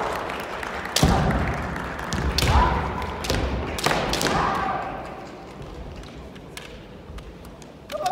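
Kendo exchange: sharp cracks and thuds of bamboo shinai strikes and stamping feet on the wooden floor, three loud ones in the first four seconds, each of the later two followed by a fencer's short kiai shout, with a few lighter clicks after that, echoing in a large hall.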